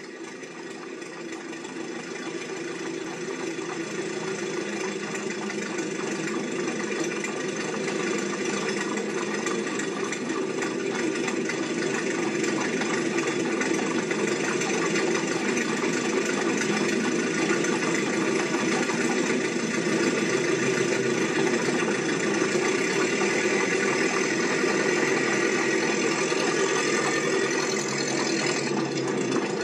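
A steady mechanical running sound, engine-like, that fades in over the first several seconds and then holds at an even level.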